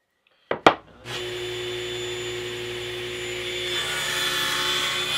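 Two sharp clicks, then a table saw running steadily. About four seconds in the blade starts cutting a slot part-way through a walnut octagon block pushed across it on a 30-degree sled, and a louder, higher cutting noise joins the steady running.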